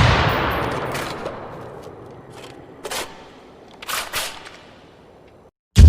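Gunfire sound effect: one loud shot with a long fading echo, then several fainter, scattered shots.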